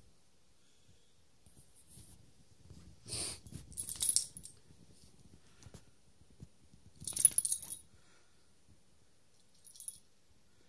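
A dog's metal collar ID tag jingling in several short bursts as a Cairn Terrier moves about, loudest a little after the middle, over faint rustling.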